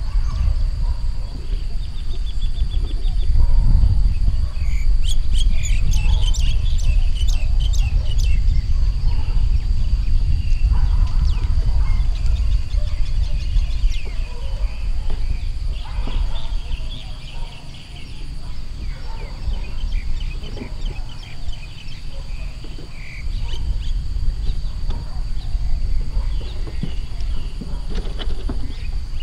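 A young Asian elephant kicking and dragging a cracked shell of a hard ball across dry dirt, giving a few knocks and scrapes, over a steady low rumble. Birds chirp and a steady high-pitched whine runs throughout.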